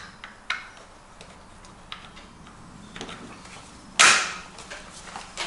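Walther HK G36 .22LR rifle being put back together: a few light clicks of parts seating, then a loud metallic clack about four seconds in.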